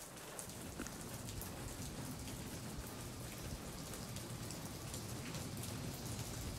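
Steady soft rain, an even hiss with scattered faint drop ticks.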